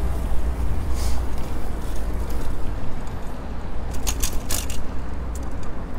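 Wind and road rumble on a bicycle-mounted action camera while riding, with a few sharp rattles and clicks from the bike about a second in and again a little after the middle.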